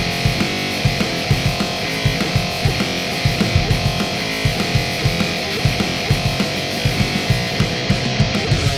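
Heavy-metal-style music: a distorted, guitar-like lead from an Otamatone Deluxe run through GarageBand guitar-amp and effect pedals, over a fast drum beat.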